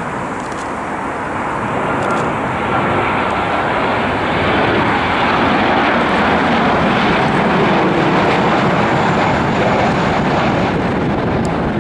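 Boeing 737-800's CFM56-7B turbofan jet engines on final approach: a steady rushing roar that grows louder over the first half and stays near its peak as the airliner passes close by.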